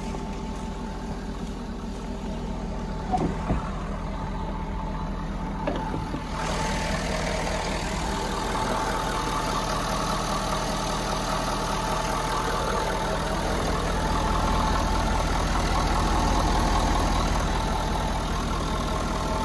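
Ford 6.7 L Power Stroke V8 turbo diesel idling steadily with the hood open, getting louder about six seconds in. The idle sounds normal after its gasoline-contaminated tank was drained and refilled with diesel.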